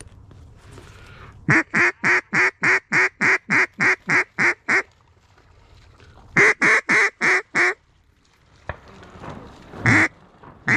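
Mallard duck call blown in a hunter's hail-and-feed pattern: a fast, even run of about a dozen loud hen quacks, each dropping in pitch, then a pause, five more quacks, and a single quack near the end.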